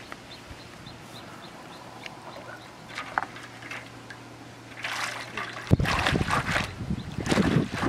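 Pond water splashing and sloshing as a corrugated metal sheet is pushed through it at the bank, in repeated irregular splashes starting about five seconds in. Before that it is fairly quiet, with a faint run of short high chirps.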